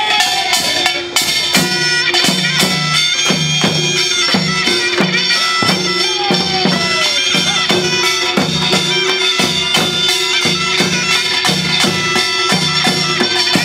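Korean pungmul band playing: a taepyeongso (Korean shawm) plays a shrill melody, with a falling slide near the middle, over a steady drum beat of about two strokes a second and sharp metallic strikes.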